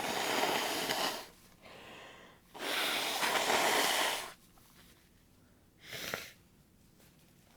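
A person's heavy, wheezy breathing: two long noisy breaths, then a short one about six seconds in.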